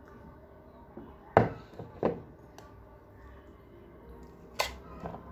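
Tableware knocking and clinking: a drinking glass and a spoon against a plate and table, three sharp knocks, the loudest about a second and a half in.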